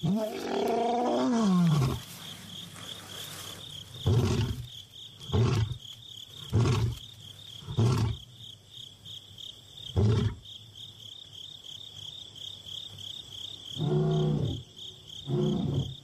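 Young male lion roaring to call his missing brother: one long moaning roar falling in pitch, then five short grunting roars about a second or two apart, and two more near the end. A steady high insect trill pulses underneath.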